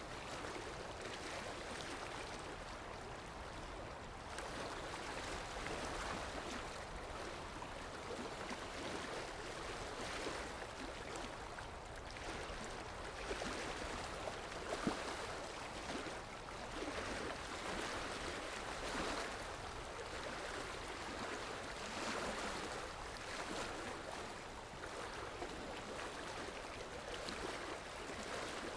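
Floodwater of a river in flash flood rushing and churning, a steady rush that swells and eases every few seconds, with one brief knock about halfway through.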